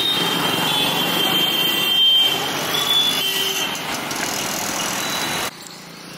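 Street traffic of motor scooters, motorcycles and auto-rickshaws running past close by, a dense mix of small engines and tyres on the road. About five and a half seconds in it cuts off suddenly to a much quieter background.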